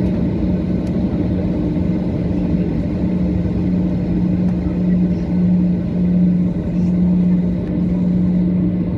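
Steady cabin drone of a Boeing 737-800 with its CFM56 jet engines running: a loud, even rumble with a low hum that swells and fades.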